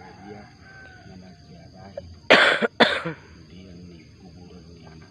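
Two loud coughs in quick succession about two and a half seconds in, the second shorter, close to the microphone.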